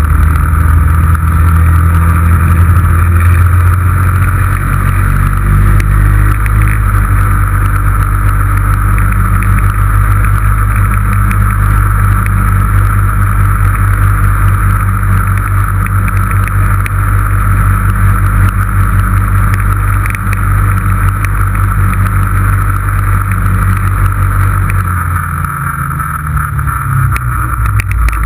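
2006 Yamaha Rhino 660's single-cylinder four-stroke engine running steadily under way at road speed. Near the end its pitch sags as the machine slows, then climbs again.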